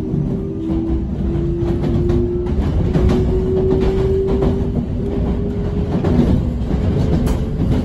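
Running sound inside a Sanyo 5030 series electric train: the Fuji Electric VVVF inverter's whine climbs in pitch in several steps as the train accelerates away from the station, over the rumble of the wheels on the rails and frequent clicks from rail joints.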